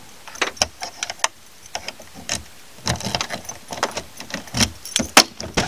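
Car keys jangling and clicking in hand, a string of irregular sharp clicks and rattles.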